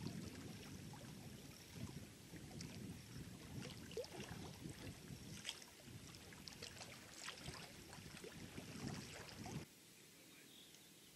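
Faint small waves lapping and splashing against a rocky shore, uneven and without any engine note, cutting off suddenly near the end to a quieter hiss.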